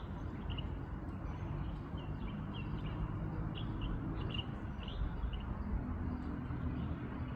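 Small birds chirping, with short high notes scattered throughout, over a steady low rumble.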